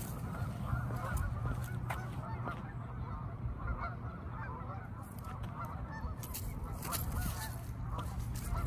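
A large flock of Canada geese honking, many calls overlapping continuously.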